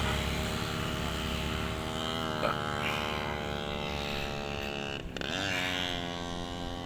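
A motor engine running steadily, its pitch briefly dropping and climbing back about five seconds in, over a low rumble.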